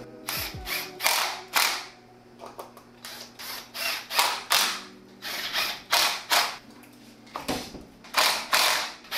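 Cordless drill/driver running in short, stop-start bursts as it drives 8-32 socket-head screws through monster-truck wheels into the robot's hub carriers.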